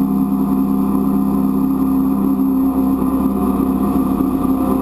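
A jet boat's 351 V8 inboard engine and jet pump running steadily at high speed, a constant engine drone with no change in pitch.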